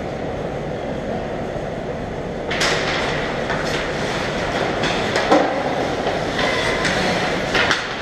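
Ice hockey play: skate blades scraping and carving on the ice with sticks and puck clacking, starting about two and a half seconds in as play resumes from a faceoff, over a steady rumble of arena noise. Sharp knocks stand out about five and seven and a half seconds in.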